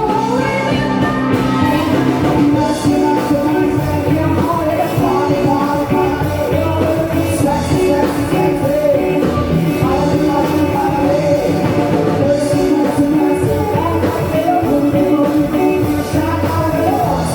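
Loud rock band jam, a bending melodic lead line over steady bass and drums.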